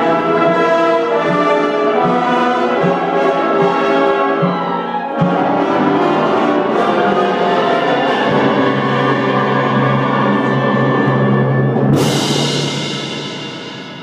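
A school wind band with brass and timpani playing a passage scored to imitate a helicopter. Steady low drum strokes come about every three-quarters of a second under sustained brass chords, then a sharp hit about five seconds in. A low brass note holds until a loud cymbal crash near the end, which rings away as the band fades.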